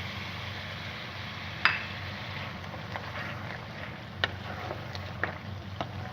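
Cooking utensil knocking against the pan of butter chicken as cream goes in, over a steady hiss from the stove. There is one sharp loud knock about a second and a half in, then a string of lighter taps.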